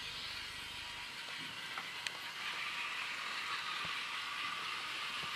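Battery-powered motorized toy trains whirring along plastic track, a steady high buzz, with a couple of light clicks about two seconds in.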